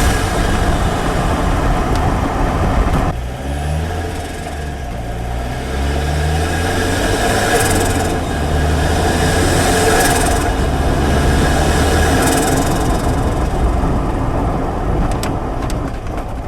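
Turbocharged Mazda Miata engine running while driving, its note dropping about three seconds in and then climbing in pitch as the car pulls. Several short hisses come through over the engine later on.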